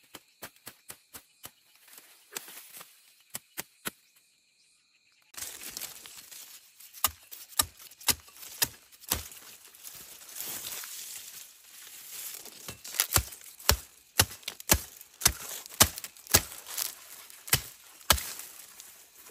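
A blade chopping at sugarcane stalks near their base: light, fairly regular strikes for the first few seconds, then after a short break heavier, irregular blows.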